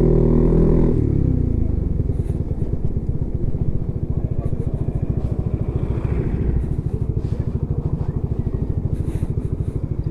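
Honda CB150X's single-cylinder engine running under throttle, then easing off about a second in, with the pitch falling, and settling into a steady, even low pulsing at idle or low revs.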